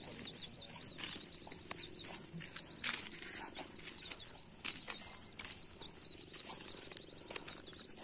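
Dense chorus of night insects chirping high and fast without a break, with a few scattered clicks and rustles in the undergrowth.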